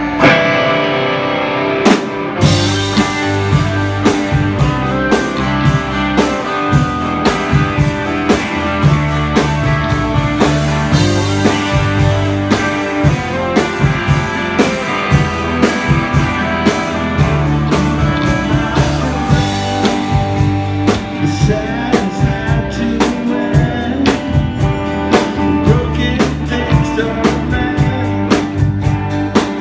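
A live rock band playing: electric guitars, bass guitar and drum kit, with singing. The drums and bass come in with a steady beat about two seconds in.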